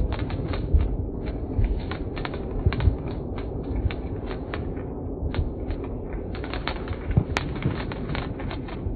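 Ground firework fountain crackling: a rapid, irregular run of sharp pops and crackles over a low rumble, thinning out around five seconds in and then picking up again.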